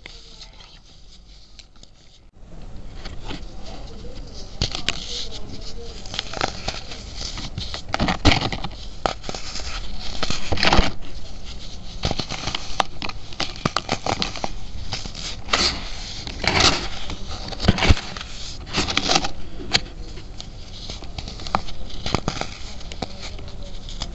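Fingers crushing molded baking soda domes and rubbing the loose powder: dense, irregular crunching and crackling that starts about two seconds in, with the loudest crunches around the middle.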